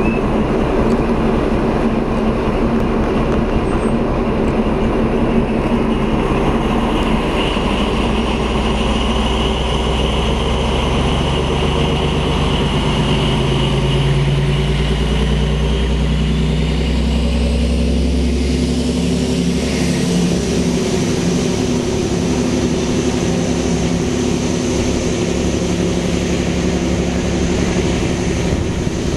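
MÁV class M41 diesel-hydraulic locomotive working hard as it pulls a passenger train away from a standstill, together with wheel and rail noise. The engine note climbs as the train gathers speed, and the sound changes about two-thirds of the way through.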